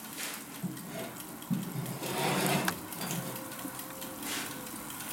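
Faint sizzling and bubbling from a hot cast-iron mini cocotte of mushrooms just out of the oven, with a few light knocks and clinks of crockery and utensils.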